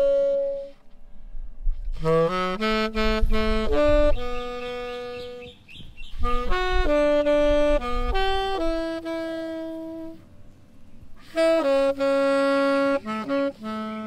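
Solo, unaccompanied tenor saxophone playing slow melodic phrases. A held note ends just after the start, then after a short pause come three phrases of moving and held notes, each separated by a breath of about a second.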